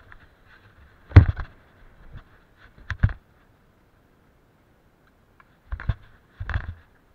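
BMX bike knocking and rattling as it rolls over wooden skatepark ramps: a loud knock about a second in, a pair near three seconds, and two more near the end.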